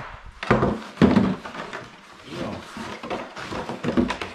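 Hard plastic sled knocking and scraping as it is handled and set down on the ice, a few irregular knocks, the loudest about a second in and again near the end.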